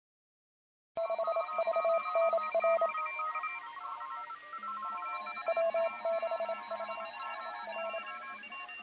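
Electronic beeping tones: short blips at a few fixed pitches switching on and off in a quick, uneven pattern, like telephone keypad tones, starting about a second in.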